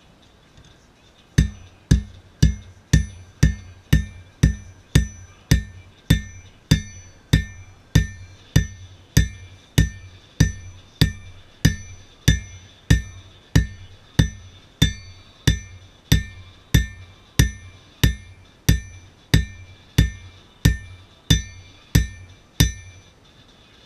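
Forging hammer striking work on an anvil in a steady rhythm of about two blows a second, each blow a sharp strike with a bright ringing of the anvil. The hammering starts about a second and a half in.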